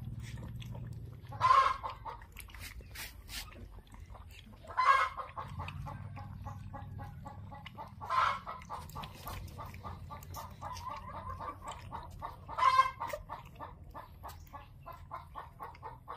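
Chicken clucking: four loud short calls a few seconds apart, with softer quick clucks running between them.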